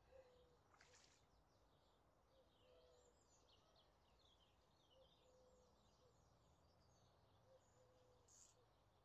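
Faint birdsong: small birds chirping and warbling, with a low two-note call repeating every two or three seconds. A short click about a second in.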